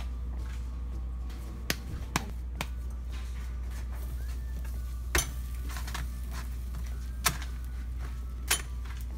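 About five short, sharp taps, spread out and irregular, as hands lay and handle corn tortillas on a nonstick stovetop griddle. A steady low hum runs underneath.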